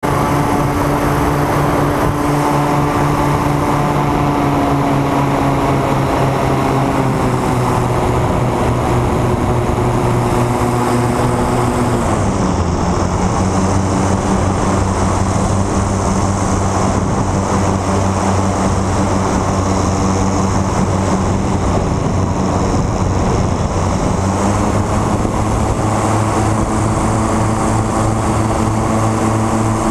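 Propeller aircraft engine running steadily, heard from on board. Its note drops about twelve seconds in and climbs again near the end as the power is changed.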